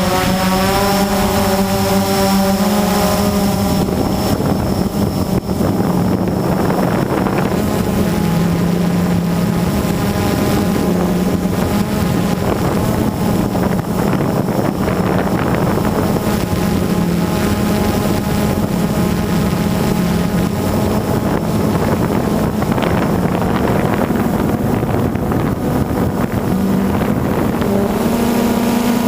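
Blade 350 QX quadcopter's motors and propellers whirring in flight, their pitch shifting up and down as the throttle changes, with wind noise on the microphone.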